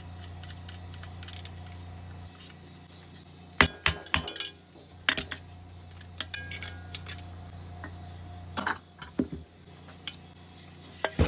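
Metal clinks and taps from tools and small engine parts being handled while the governor arm is taken out of a push-mower engine, in several short clusters over a steady low hum.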